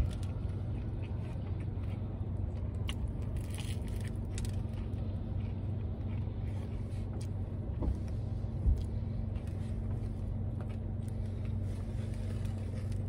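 Steady low hum inside a car's cabin, with soft chewing and a few faint crunches as a shrimp po'boy is eaten, and a short thump about eight and a half seconds in.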